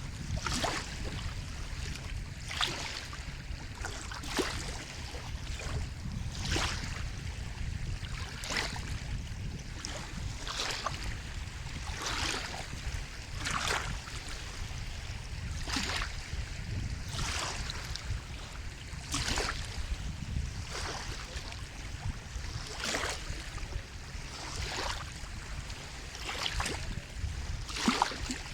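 Sea water lapping and splashing in short rushes about every one and a half to two seconds, over a steady low rumble.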